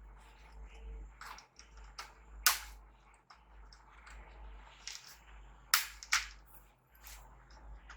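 Plastic clips of a laptop screen bezel snapping and clicking as it is pried loose: about half a dozen irregular sharp clicks, the loudest about two and a half and six seconds in, with light scraping and a low hum underneath.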